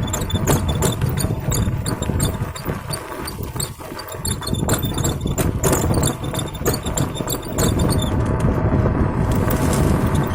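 Vehicle travelling over a rough road: a low rumble with many sharp rattling clicks, easing briefly about four seconds in.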